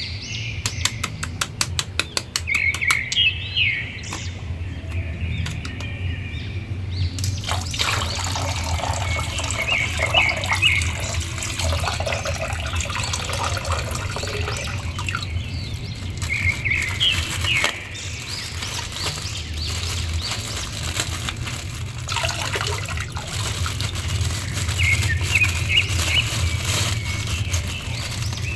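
Water splashing and sloshing in a plastic basin as toy figures are moved and dunked, with short bird chirps recurring in the background. A fast run of clicks comes in the first few seconds.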